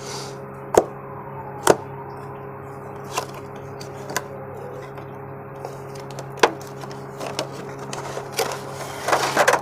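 Scattered sharp clicks and taps of a small cardboard product box being opened and its contents handled and lifted out. A busier run of clicks and rustling comes near the end.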